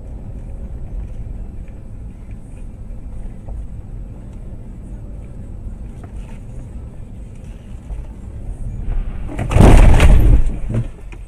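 Low, steady rumble of a car driving, heard through a dashcam inside the car, then about nine and a half seconds in a loud head-on collision with an oncoming car: a crash of impact and crunching metal lasting about a second.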